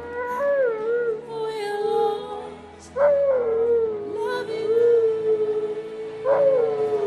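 A dog howling along to music: long held howls that waver in pitch at first and then settle on one note, starting afresh three times about three seconds apart, over a soft ballad backing track.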